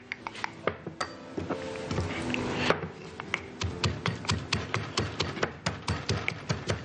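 Pestle pounding basil, garlic and cashews in a mortar, crushing them coarsely rather than to a smooth paste. Quick knocks, irregular at first, settle about three seconds in into an even beat of about four a second.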